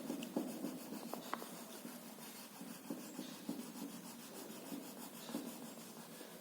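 Brown colour being rubbed onto paper in quick back-and-forth strokes, a faint irregular scratching as a picture is coloured in.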